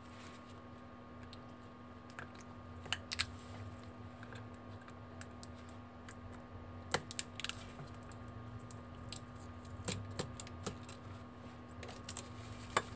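Scattered small clicks and taps of metal tweezers against the plastic parts of an LG GU230 slider phone being dismantled. A few sharper clicks come about three, seven and ten seconds in and near the end, over a steady hum.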